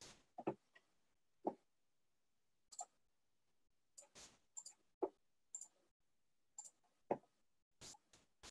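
Faint, scattered clicks and taps from a computer mouse and keyboard, about a dozen at irregular intervals, with near silence between them.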